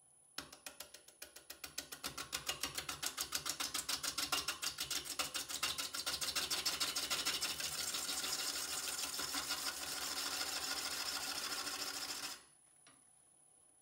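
A gouge cutting the spinning, uneven green spalted sugar maple natural-edge blank on a wood lathe: an interrupted cut that knocks about seven times a second, once per turn as the tool meets the scalloped wings and uneven spots. It grows louder and settles into a steadier shaving hiss, then stops abruptly when the tool comes off the wood about 12 seconds in.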